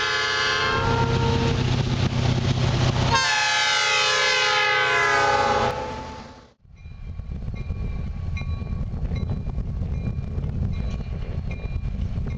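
Locomotive air horn sounding a multi-note chord, then a second blast whose pitch bends, fading out about six seconds in. After that comes a low steady rumble of a distant approaching freight train, with faint ringing tones coming and going.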